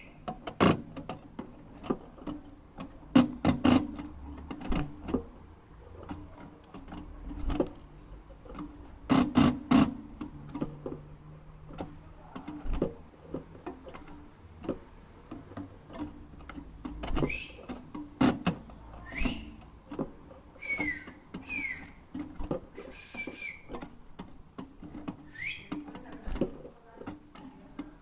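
A young European goldfinch in a cage gives short, sparse chirps, mostly in the second half, over repeated sharp clicks and knocks and a low steady hum.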